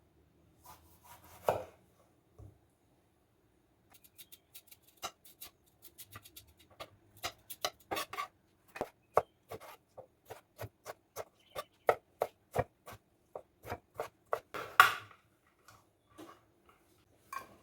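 Knife chopping vegetables on a cutting board: a few scattered knocks, then from about four seconds in a steady run of strokes, about two to three a second, with a louder knock near the end.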